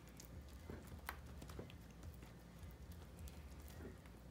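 Metal fork mashing soft roasted eggplant in an aluminium foil pan: faint, irregular light clicks and taps.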